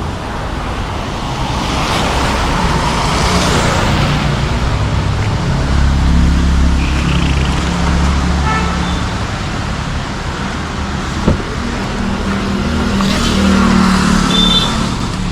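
City traffic heard from a moving car: a steady rumble of engines and tyres on the road, swelling as vehicles pass. Vehicle horns toot briefly about halfway through and again near the end.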